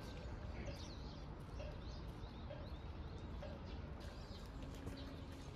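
Small birds chirping on and off, short high calls, over a steady low outdoor rumble.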